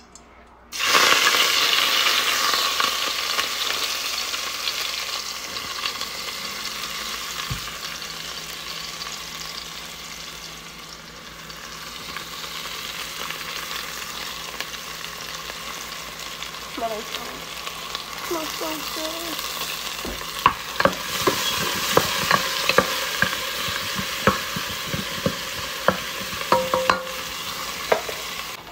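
Chopped green onions hit hot oil in a stainless steel pot about a second in and sizzle loudly at once, settling into a steady frying hiss. In the second half a utensil stirs them, with frequent sharp scrapes and knocks against the pot.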